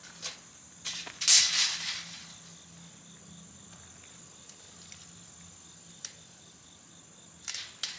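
Steady high-pitched insect drone, with a few light clicks and a brief loud scraping rustle about a second in.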